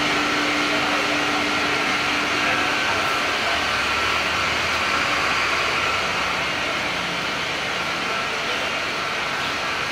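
Batch pyrolysis plant running in production: a steady mechanical hiss and hum with a constant high whine, and a lower drone that fades out about three seconds in.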